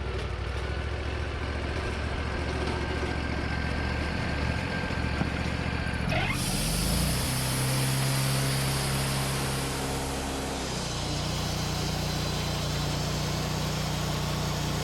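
Sawmill engine running steadily. About six seconds in it speeds up and a steady high hiss joins it, and near eleven seconds the engine settles into a different even pitch.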